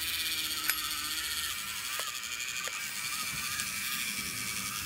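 Small electric drive motor and gearbox of a miniature metal tracked model tractor running with a steady high whir as it crawls forward, with a few sharp clicks along the way.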